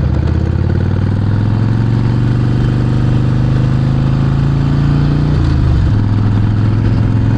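Harley-Davidson Sportster 48's 1200 cc V-twin through a Vance & Hines exhaust, riding under steady throttle with the engine note climbing slowly. About five seconds in the note breaks briefly and drops, then carries on steady.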